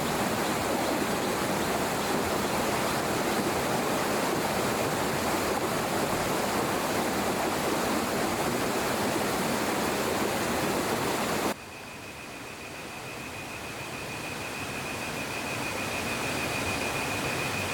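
Steady rush of flowing water. It cuts off suddenly about two-thirds through, giving way to a quieter stretch with a steady high, thin tone.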